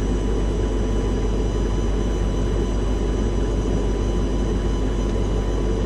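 Steady mechanical drone of a military vehicle's engine and equipment running inside the launcher cabin, with faint steady high-pitched electronic whines over it.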